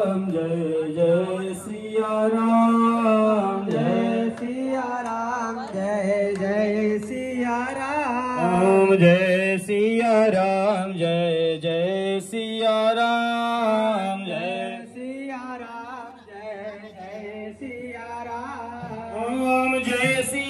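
Male voices chanting a devotional Hindu hymn in a continuous melodic line.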